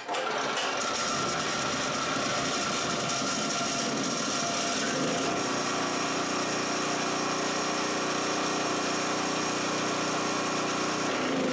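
Harbor Freight 3000-watt portable generator engine, converted to run on propane, catching suddenly and then running steadily. It is uneven at first and settles into a steadier, even note about five seconds in, while the propane regulator is being set back to its run position.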